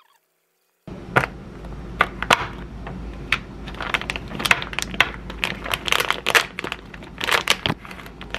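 Plastic food packaging crinkling and rustling as the outer bag is pulled open and the pouches inside are handled, with many sharp crackles; it starts about a second in.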